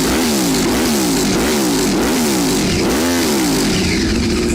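2015 Yamaha R1's crossplane inline-four engine revved in quick repeated blips, its pitch rising and falling about every two-thirds of a second, with one bigger blip about three seconds in before it settles to a steady note near the end.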